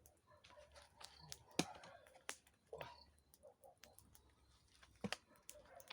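Campfire crackling: a scattered series of sharp wood snaps, the loudest about one and a half seconds in and a quick pair near the end.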